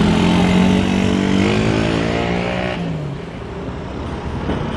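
Motorcycle engine accelerating away with its pitch rising, cutting off suddenly about three seconds in, after which a quieter background hum is left.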